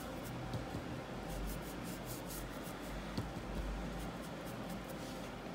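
Stiff-bristled brush scrubbing liquid starch into cotton twine wound around a pencil: runs of quick, scratchy brush strokes, with a small tap about three seconds in.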